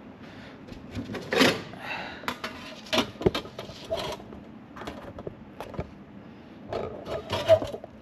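Hands handling tools and parts at a workbench: a series of irregular knocks, clicks and clatters, with a sharper clunk about a second and a half in and another near the end.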